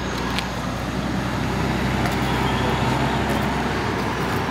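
Road traffic: a passing vehicle's rumble and tyre noise swelling gradually to a peak about three seconds in, then easing.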